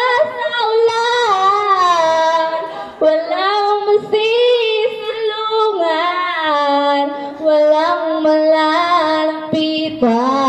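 A girl singing solo into a handheld microphone, gliding between notes and holding long notes with vibrato, the longest from about the middle to near the end.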